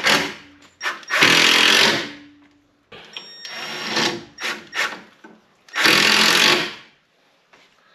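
Cordless drill-driver running in short bursts, driving screws into a timber rafter to fix an aerial loft mount bracket. One burst is ending as the sound begins, a second runs from about one to two seconds in, a quieter one follows around three to four seconds, and a last one comes about six seconds in.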